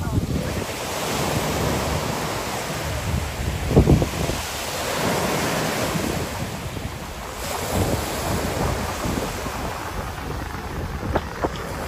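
Ocean surf washing onto the beach, swelling and easing twice, with wind on the microphone and a low thump about four seconds in.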